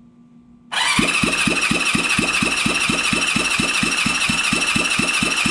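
Electric starter cranking a 1978 Honda CB550 inline-four engine over during a compression test on cylinder number two: a steady high starter whine over a regular pulse of about four to five beats a second, beginning under a second in.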